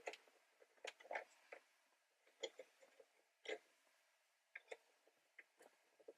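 Near silence broken by a dozen or so faint, short clicks and taps, irregularly spaced, from handling the OBD2 code reader and its cable plug.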